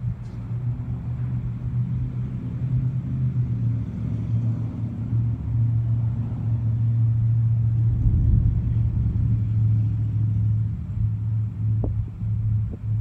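Thunder rolling in a long, low rumble that swells about eight seconds in, with a few faint clicks near the end.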